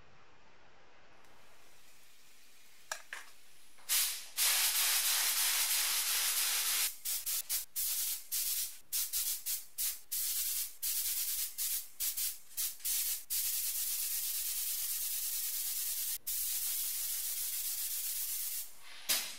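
Compressed-air gravity-feed paint spray gun spraying, a loud hiss that starts about four seconds in, with a couple of clicks just before it. It comes in many short trigger bursts in the middle, then one long steady pass that stops shortly before the end.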